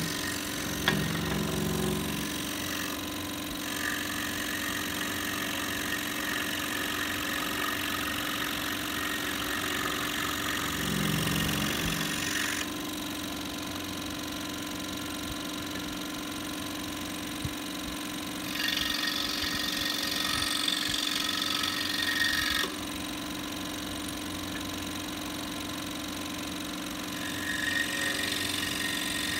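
Scroll saw running steadily with its motor hum, the blade cutting through small pieces of wood. The cutting sound comes and goes in several stretches as the workpiece is fed and turned.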